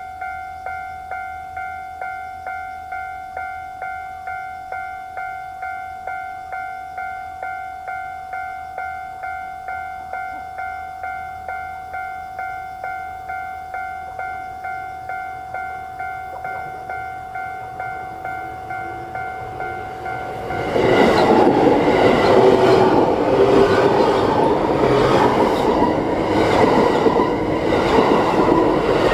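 Japanese railway level-crossing warning bell ringing its electronic ding-ding at about two strokes a second. About two-thirds of the way in, a train passes over the crossing and its loud wheel and rail noise drowns the bell.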